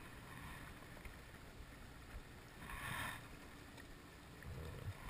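Faint wind and water noise around a small boat drifting at sea, with a brief, louder rush of noise about three seconds in.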